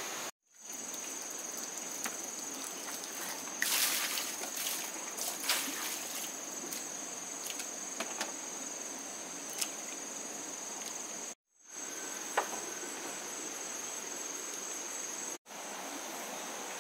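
Steady high-pitched insect buzz over a background hiss, with scattered rustles and clicks about four to six seconds in. The sound cuts out briefly three times.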